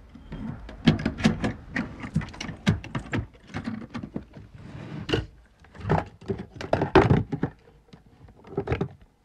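A run of irregular knocks and thuds, several a second, that stops suddenly near the end.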